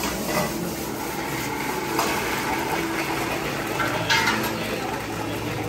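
Working restaurant kitchen: dishes and metal utensils clinking over a steady background hiss, with a sharp clink about two seconds in and a few more about four seconds in.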